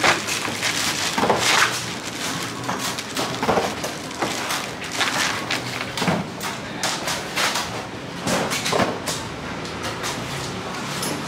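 Coconuts being chopped with a large knife: a series of sharp chops at uneven intervals, roughly one a second.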